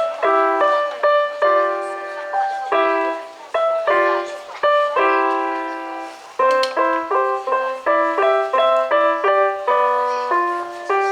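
Keyboard music: a tune played in chords, each note struck sharply and fading, in a steady rhythm with no bass notes.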